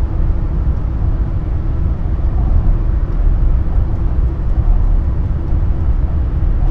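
Airport inter-terminal shuttle train running, heard from inside the car: a steady low rumble with a faint hum.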